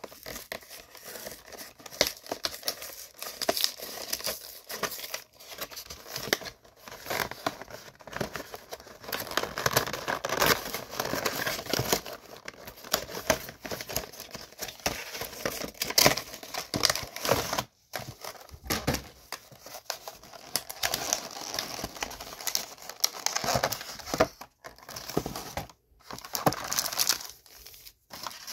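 Cardboard and plastic packaging of a Pokémon card collection box being handled and opened: continual crinkling and tearing with irregular rustles and clicks, stopping briefly a few times.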